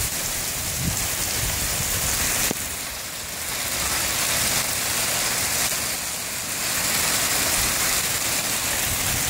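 Hail and rain pelting pavement: a dense, steady hiss of hailstones hitting the ground. The sound dips suddenly about two and a half seconds in, then builds back.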